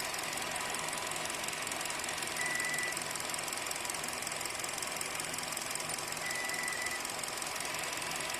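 Car engine running with a steady mechanical clatter, the unexplained noise of a new car's engine. A short, thin high squeak sounds about two and a half seconds in and again about six and a half seconds in.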